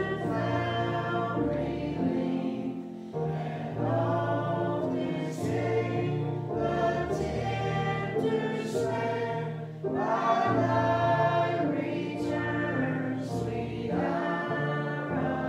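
Church congregation singing a hymn together, in sustained notes phrased line by line with short breaks between phrases.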